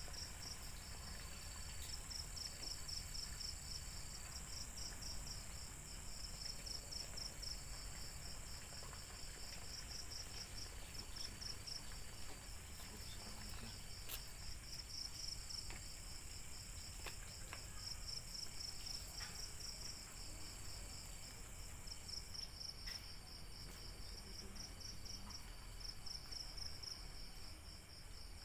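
Crickets chirping in repeated short pulsed trills, over a steady high insect whine and a faint low rumble.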